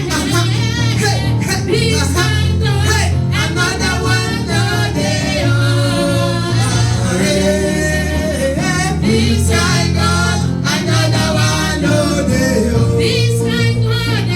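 Gospel worship song performed live: a choir singing over an amplified band with a steady bass line.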